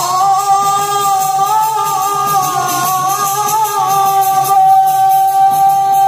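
Live music from a stage performance played over loudspeakers: a melody of long, smoothly held notes, the last one held steady for about three seconds.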